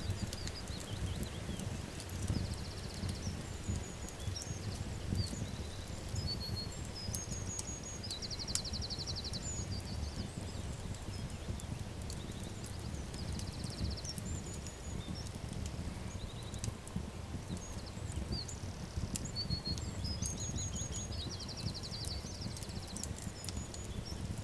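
Crackling wood fire with scattered sharp pops over a steady low rumble, while small birds chirp and give short buzzy trills, the calls repeating in a pattern about every ten seconds.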